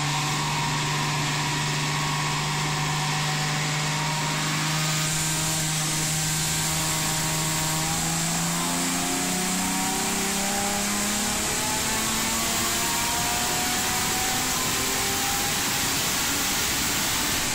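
Chrysler Hemi 265 straight-six with triple Weber carburettors and a cold-air intake box, running under load on a chassis dyno through a power run, its pitch rising slowly and steadily. A hiss in the high end grows louder about five seconds in.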